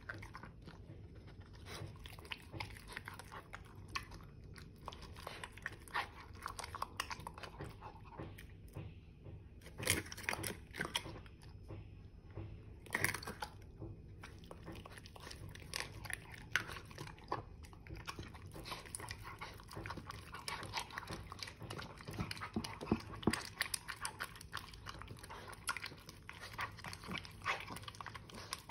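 A mini bully dog eating raw food from a stainless steel bowl: repeated chewing and crunching with many short clicks. The loudest are about ten and thirteen seconds in and again about twenty-three seconds in.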